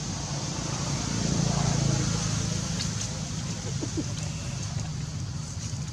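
Low, steady engine rumble of a motor vehicle that swells about a second in and then eases off, with a few faint clicks and a short squeak near the middle.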